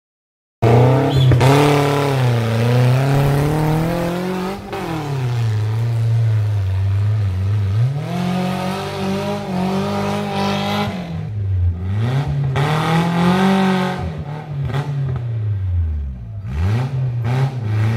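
Semi-modified Maruti Gypsy's engine revving hard under load on a steep muddy off-road climb, its pitch rising and falling again and again as the throttle is worked.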